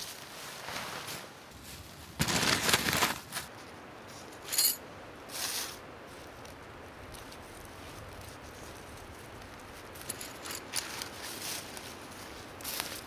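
Scattered handling noises: a noisy crunching or rustling burst about two seconds in, a short clink with a ringing high tone about halfway through, and a few shorter rustles near the end.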